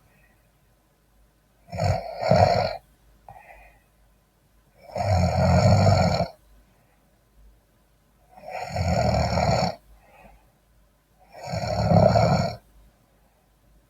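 A man snoring in his sleep: four loud snores about three seconds apart, with near-silent pauses between them. The first snore is broken in two.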